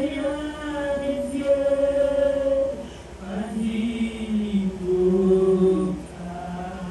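Voices singing a slow chant in long held notes, more than one pitch sounding together, each note held for a second or two.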